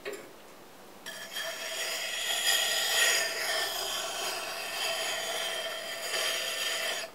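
Steel broad axe blade being ground on a treadle-powered water grindstone: a steady scraping hiss of metal on wet stone. It starts about a second in and stops suddenly near the end.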